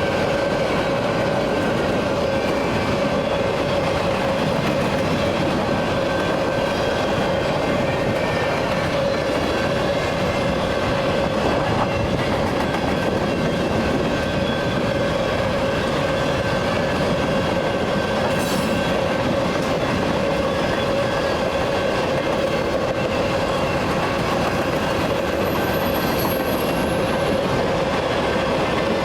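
Freight train's cars rolling steadily past, wheels rumbling on the rails with a continuous high squeal ringing from the wheels.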